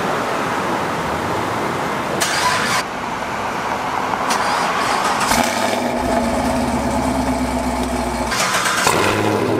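Chevrolet Camaro 1LE engine starting and idling through its exhaust. The sound cuts between the car on its stock NPP exhaust, idling steadily with a low drone through the middle, and the car on an AWE Track Edition axle-back fed by long-tube catless headers and an X-pipe with no resonators.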